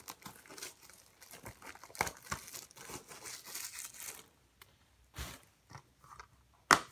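Thin plastic shrink-wrap being torn and crinkled off a Blu-ray case, a dense crackling for about four seconds, then a few light ticks and one sharp click near the end.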